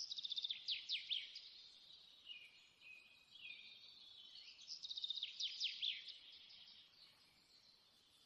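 Bird song: two bursts of rapid high trills and quick falling chirps, one at the start and one about five seconds in, with softer twittering between that fades out near the end.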